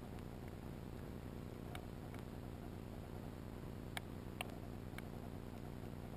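Underwater sound over an oyster bed: a steady low rumble of water noise with a handful of sharp, isolated clicks, the two loudest close together a little past the middle.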